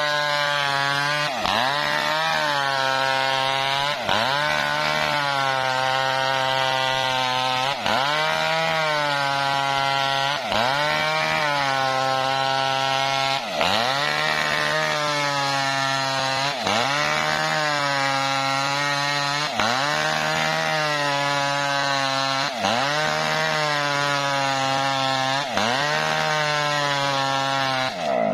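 Small Maestro chainsaw ripping lengthwise through a coconut palm log at full throttle. Its engine speed sags briefly under the load and picks back up about every three seconds.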